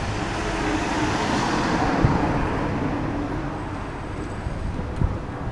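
A road vehicle passing along the street, its tyre and engine noise swelling to a peak about two seconds in and then fading away, with a couple of light knocks.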